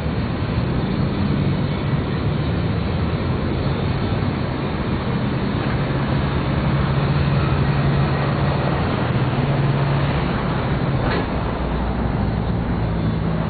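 A motor vehicle engine running steadily, a low hum under a continuous rushing noise.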